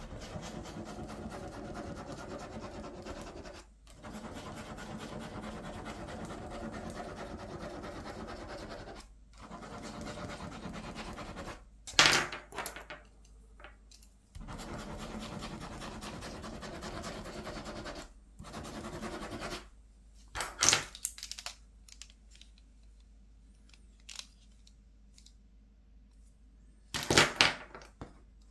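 Ballpoint pen scribbling loops on paper on a clipboard: a steady scratchy rasp in long strokes with short pauses. A few sharp clicks cut in, about twelve seconds in, around twenty-one seconds, and near the end.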